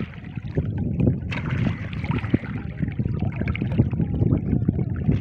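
Water sloshing and splashing irregularly in a shallow river, over a low rumble of wind on the microphone.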